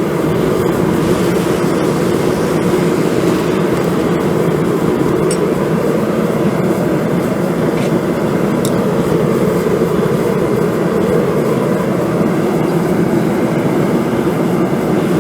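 A forge just lit, coming on suddenly and then running with a loud, steady rushing noise.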